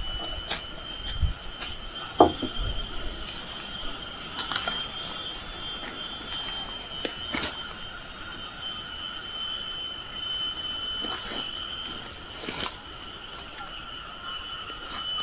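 Forest insects shrilling steadily in several high, unbroken tones, with a few sharp wooden knocks as cut poles are handled, the loudest about two seconds in.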